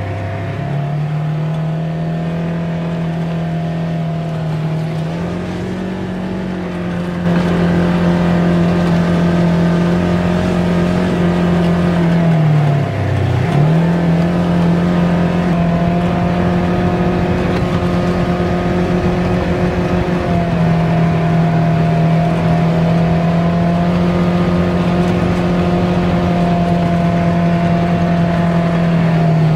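Polaris RZR Trail S 1000 side-by-side's twin-cylinder engine running steadily under way, heard from inside the open cab, with gravel and wind noise. About seven seconds in it gets louder, and about halfway through the revs drop briefly before climbing back.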